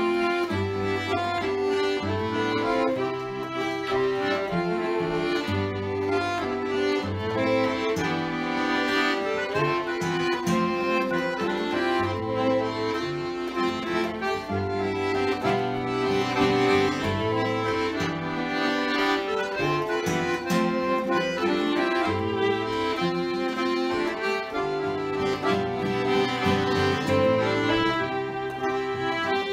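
Fiddle, button accordion and acoustic guitar playing a folk tune together, with the accordion's sustained chords and melody prominent and the guitar giving a steady strummed bass beneath.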